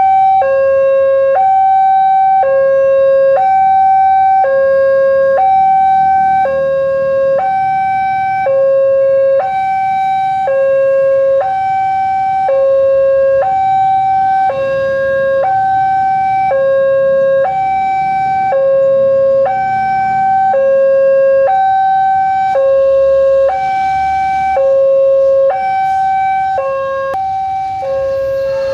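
Railway level-crossing warning alarm sounding a loud two-tone signal, alternating evenly between a higher and a lower tone, which warns that a train is approaching.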